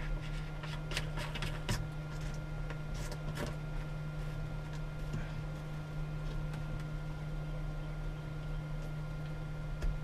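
A few light clicks and scrapes as a 12-volt socket's mounting nut is turned by hand into a wooden panel, in the first few seconds, then only a steady low hum.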